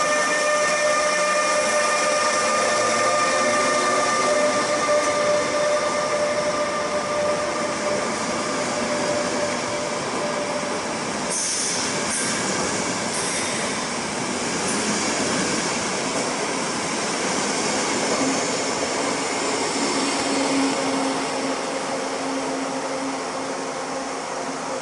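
ÖBB class 1116 Taurus electric locomotive and its double-deck coaches passing close by, with continuous wheel and rail rolling noise. A steady whine of several tones from the locomotive fades over the first ten seconds as it goes by. A few short high-pitched wheel squeals come a little before halfway.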